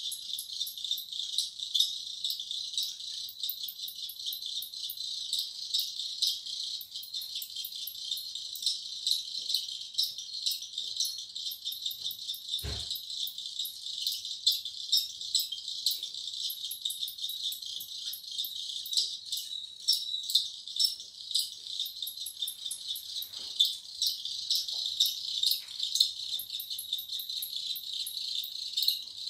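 Crickets chirping: a dense, steady, high-pitched mass of rapid pulsing chirps, a little like a rusty old bicycle squeaking.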